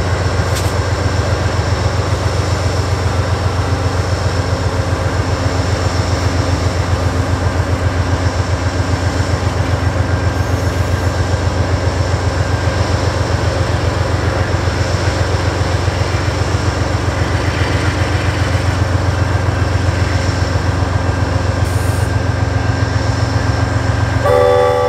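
Amtrak diesel-electric locomotives running as the passenger train pulls slowly away, a steady, evenly pulsing low engine rumble. Just before the end, the locomotive horn starts to sound a multi-note chord.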